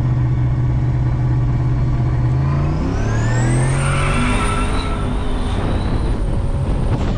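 The turbocharged LSA V8 of a 1987 Chevrolet Caprice Landau runs steadily, then accelerates hard about two and a half seconds in. The turbo's whistle rises to a high, steady whine that holds until near the end. It is heard from inside the cabin.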